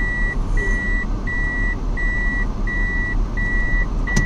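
Vehicle reversing alarm beeping at a single pitch, about one and a half beeps a second, over a steady low engine rumble. The beeping stops near the end.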